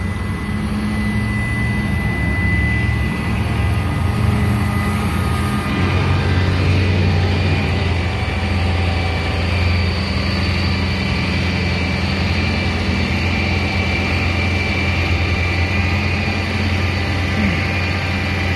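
Tow truck engine idling steadily, a low even drone that grows a little stronger about six seconds in.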